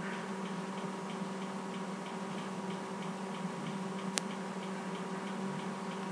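Faint, evenly spaced ticking over a steady low hum, with a single sharp click about four seconds in.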